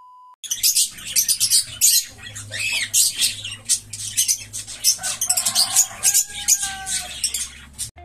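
A flock of caged budgerigars and lovebirds chattering, with many quick high chirps and squawks overlapping and a longer held call a little past the middle.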